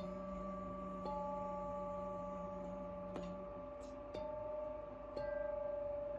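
Metal chime bars struck with a felt mallet, about four strokes, each adding a sustained ringing tone that overlaps the ones still sounding.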